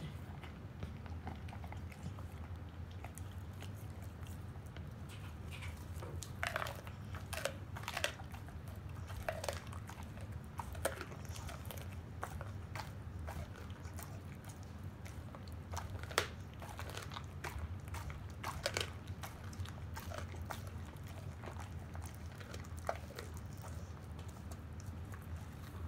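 A pit bull chewing half a raw chicken, crunching through the bones with irregular wet cracks and crunches. The crunching grows busier after the first few seconds, with the loudest crack a little past the middle.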